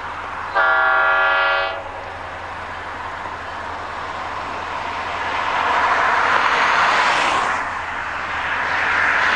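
Diesel locomotive horn, likely the EMD SD40-2 ELS 501, sounding one short chord about half a second in that lasts about a second. Then two cars pass by on the road, their tyre noise swelling and fading one after the other.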